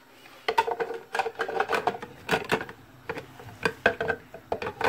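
Hard plastic parts clacking and knocking as the clear plastic drum housing is handled and fitted onto an electric grater. A dozen or so short, irregular clacks, the loudest right at the end.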